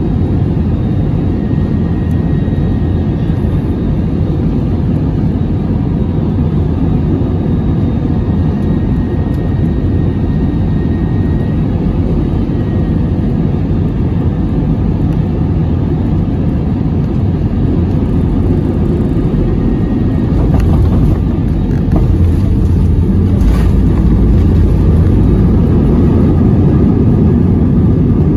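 Cabin noise of a jet airliner landing: a steady loud rumble of engines and airflow. About two-thirds of the way through there are a few short thumps as the wheels touch down, and the low rumble then grows louder as the plane rolls out on the runway.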